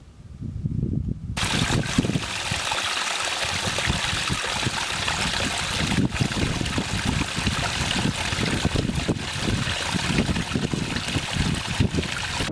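Small mountain stream splashing down a little rock fall: a steady rush of falling water that starts suddenly about a second in. Before it and underneath it, low gusts of wind on the microphone.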